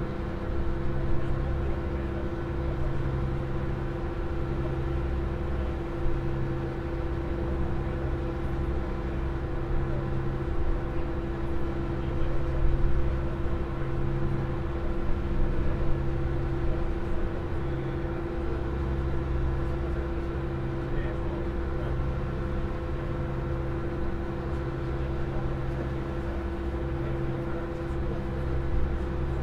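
Open car ferry's engines running steadily under way: a constant drone with a steady mid-pitched hum and a low throb that swells and fades every second or two.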